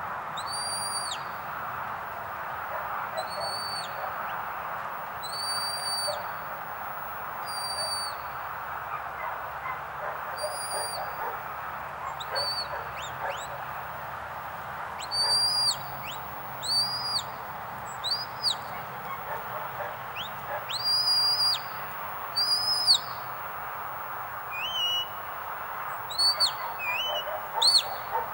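Shepherd's whistle commands to a working sheepdog: about a dozen short, high, steady whistle notes, one every second or two, with quicker rising and falling whistles near the end.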